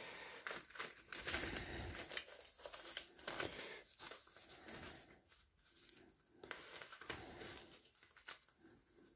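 Sheets of A4 office paper, holed and torn by bullets, handled and leafed through: faint, irregular rustling and crinkling with a few light ticks, thinning out near the end.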